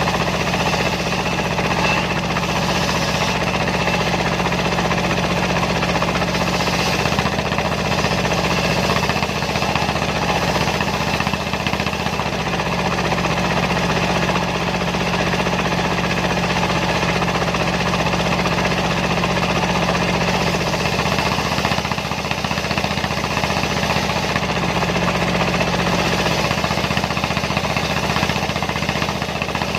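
Dongfeng diesel engine running steadily, driving a homemade circular sawmill.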